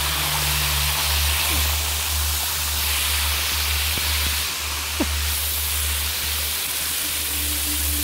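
Small waterfall pouring and splashing over rock close by: a steady, even rush of falling water.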